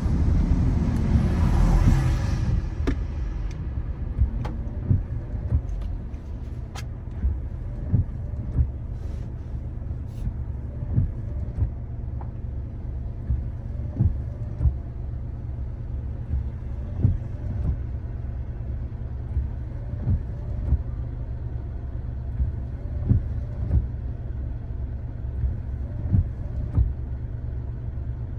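Car driving along a road: a steady low road and engine rumble with short knocks about once a second. A louder rushing noise at the start fades out about two and a half seconds in.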